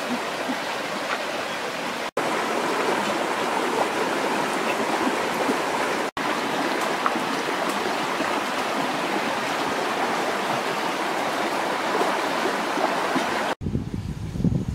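Flowing stream: a steady rush of water that breaks off for an instant twice. Near the end it cuts off, leaving low, uneven rumbling.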